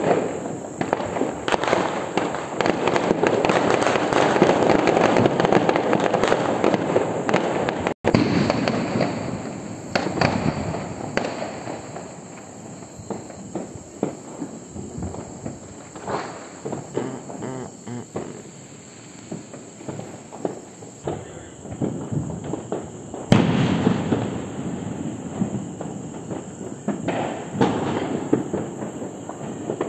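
Firecrackers and fireworks going off continuously, a dense crackle of bangs and pops from many places at once. They are heaviest in the first quarter and again in the last quarter, with one sharp, loud bang about two-thirds of the way through.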